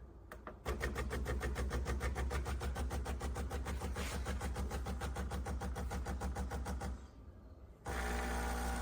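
De'Longhi La Specialista espresso machine running: a fast, even pulsing for about six seconds stops, and a second later a steady hum starts.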